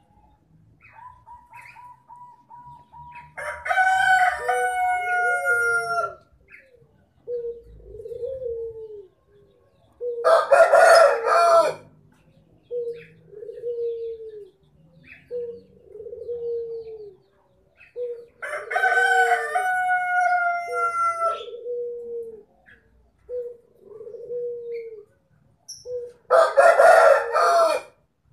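Rooster crowing four times, each crow two to three seconds long, with a string of shorter, lower calls between the crows. A rapid pulsing tone leads into the first crow.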